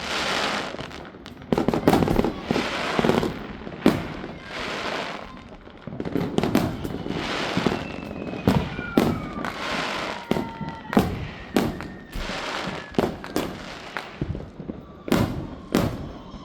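Fireworks going off: a string of sharp bangs with crackling between them. There are several falling whistles about halfway through, and a quick run of bangs near the end.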